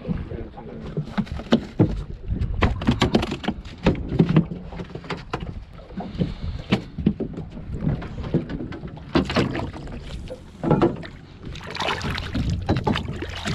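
Small boat on the water: irregular knocks and clatter over a steady low rumble.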